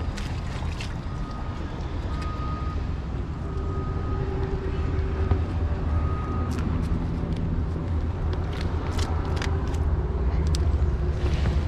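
Steady low rumble of road traffic, growing a little louder toward the end, with faint passing engine tones. Scattered short clicks and knocks of handling come through close by.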